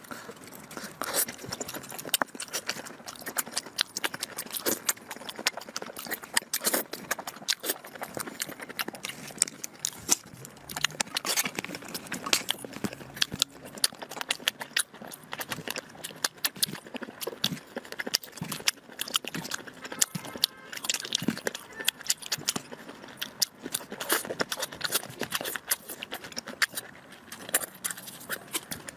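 Close-miked eating sounds: a person chewing and biting food in a dense, irregular stream of small clicks.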